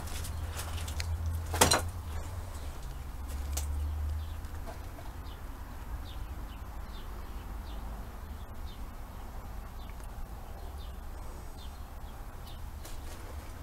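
Handling and movement noise from a hand-held phone camera as someone moves through a cluttered room: a low rumble with two sharp knocks in the first two seconds. Faint short high chirps repeat through the rest.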